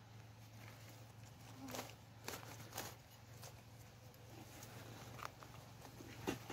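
Faint rustling and a few short crackles of forest leaf litter and undergrowth being handled and stepped on, over a steady low hum.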